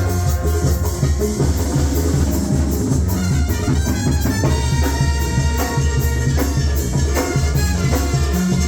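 Loud music with a heavy, steady bass line and a regular drum beat, in a Latin dance style.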